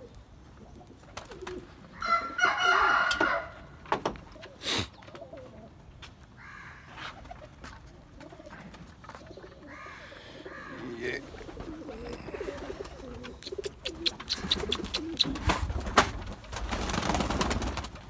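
Domestic pigeons cooing in a loft, with one louder call about two seconds in. A run of sharp clicks and a rustle near the end.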